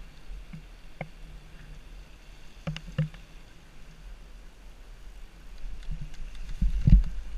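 Wind noise on the microphone of a mountain bike riding downhill, with a few sharp clicks and rattles from the bike. A heavier thump comes near the end as the bike leaves the tarmac for the bumpy grass track.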